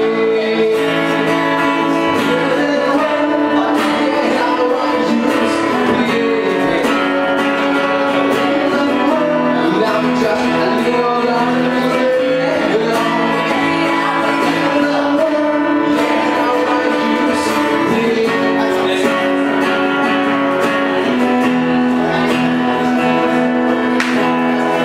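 Live band music led by strummed guitar, with some singing.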